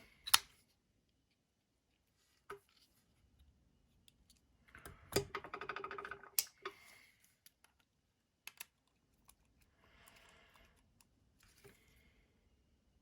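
Sharp clicks of a TRM Atom folding knife's blade being snapped open and shut, the loudest just after the start, with a busy stretch of small rattling clicks from handling the knife about five to six and a half seconds in.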